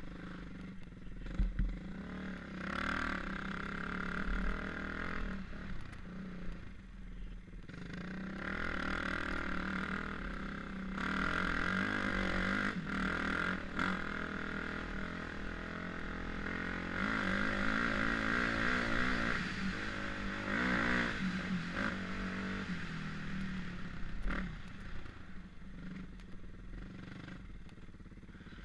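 Dirt bike engine under way on a sandy trail, its pitch climbing and dropping again and again as the rider works the throttle and shifts gears.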